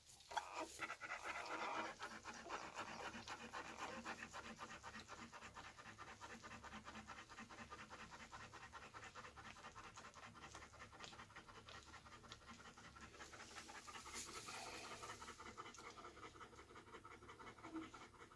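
Belgian Malinois mother dog panting quickly and steadily, faint and rhythmic, while lying on straw and nursing her newborn puppies on the day she whelped.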